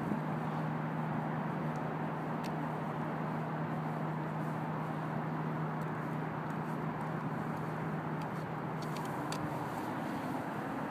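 Steady city background noise of distant traffic, with a low steady hum that fades out near the end.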